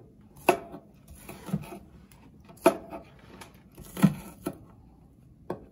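Chef's knife slicing scallions on a wooden cutting board: six sharp knocks of the blade on the board, about a second apart and unevenly spaced.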